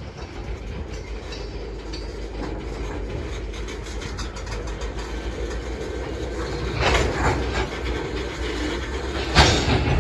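Train rolling past, the wheels clattering over the rails with a steady rumble that grows louder, and two louder surges of noise about seven and nine and a half seconds in.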